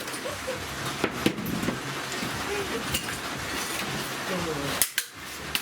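A few sharp knocks and clacks of hard plastic from a vacuum cleaner being broken apart, over a steady low hum and faint voices.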